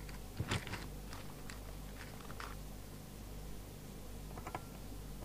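Faint handling noise: a quick cluster of clicks and rustles about half a second in, a few scattered ticks after, and another brief cluster near the end, as test leads and cables are moved on the bench. A steady low hum lies underneath.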